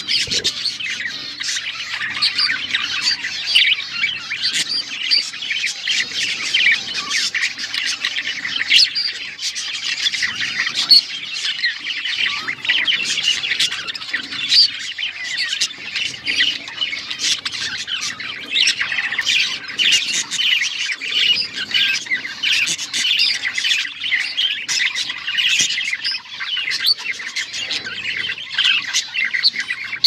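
Male budgerigar warbling without pause: a fast, unbroken chatter of squawks, chirps and sharp clicks, the song that male budgies use in courtship.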